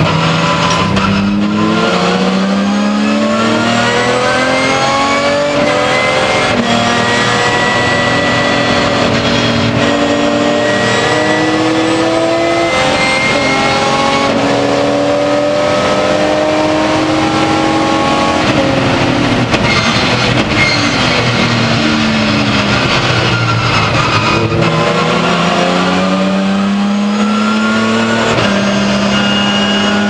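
BMW S50B32 3.2-litre straight-six of an E36 M3 race car, heard from inside the cabin, pulling up through the gears with quick upshifts on its sequential gearbox. Past the middle the pitch falls through several downshifts under braking, then climbs again as it accelerates near the end.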